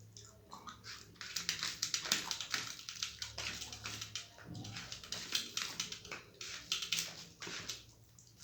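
Close-up wet eating sounds of rice with red lentil dal and mashed potato: a rapid run of moist clicks and smacks, louder from about a second in and easing near the end.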